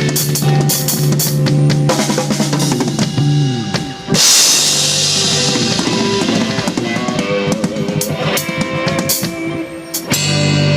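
Drum kit played along with a song: bass drum, snare and cymbals over sustained low notes, with a big cymbal crash about four seconds in.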